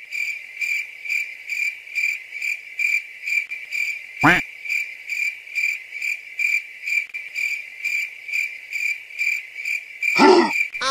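Crickets chirping in a steady pulse, about two chirps a second, like a stock sound effect. A brief swooping whoosh comes about four seconds in, and a short pitched sound near the end.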